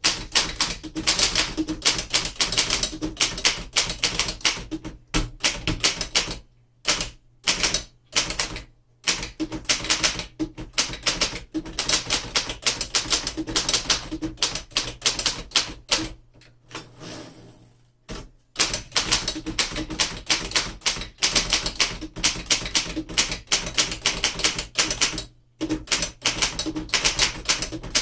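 A 1908 Remington Standard manual typewriter being typed on: rapid runs of keystroke clacks broken by a few short pauses, with a brief high ring about two-thirds of the way through.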